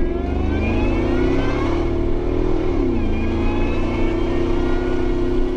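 Ford SVT Lightning's supercharged 5.4-litre V8 pulling at full throttle, with supercharger whine over the exhaust. The pitch rises for nearly three seconds, drops sharply and then holds steady.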